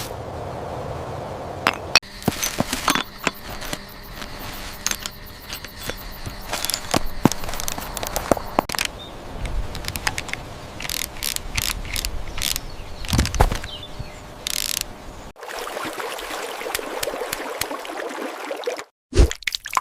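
Close-up clicks, taps and light scrapes of small parts and tools being handled, irregular throughout, with abrupt cuts about 15 and 19 seconds in.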